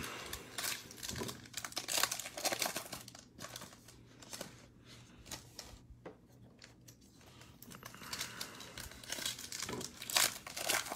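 Foil wrapper of a Panini Mosaic basketball card pack crinkling and tearing as it is ripped open by hand, in uneven rustling bursts that are louder in the first few seconds and again near the end.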